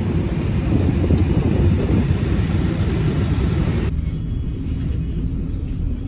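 Steady low rumble of an airport apron shuttle bus's engine, mixed with hissing apron noise. About four seconds in, the hiss drops away abruptly and a more muffled engine rumble from inside the bus remains.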